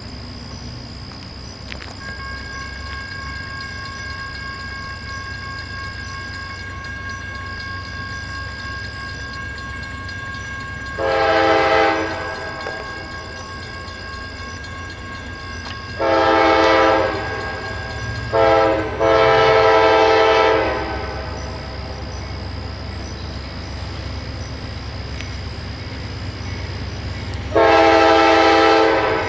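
CSX diesel freight locomotive's air horn sounding a grade-crossing signal as the train approaches: a long blast, a second long blast, a short one and a long one, then another long blast near the end, over a steady low rumble.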